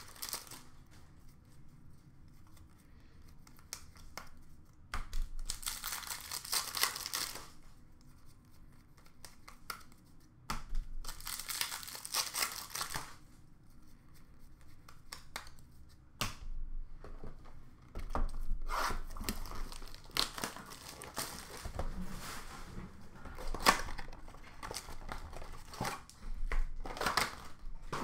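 Hockey trading-card pack wrappers being torn open and crinkled, with cards shuffled in hand. It comes in bursts a few seconds apart, getting busier and more continuous over the last third.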